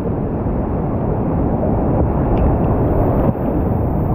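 Rushing whitewater rapids, loud and steady, heard close from a kayak running down through them.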